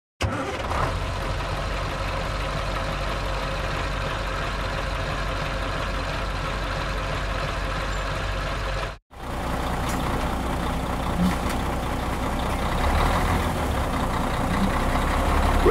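Truck engine running steadily, a sound effect laid over a toy truck that has no engine. It starts abruptly and cuts out for a moment about nine seconds in before carrying on.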